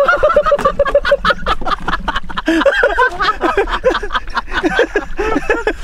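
People laughing hard, beginning with a quick run of rapid ha-ha-ha pulses and carrying on in loud, broken bursts of laughter.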